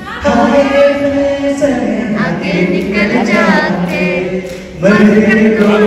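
Male voices singing into handheld microphones over a PA. A long held note comes near the start and another near the end, with a wavering melody between them.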